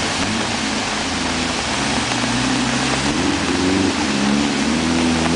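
A car driving slowly through deep floodwater: its engine runs under a steady hiss of rushing and splashing water. The engine note grows louder and rises a little about three seconds in.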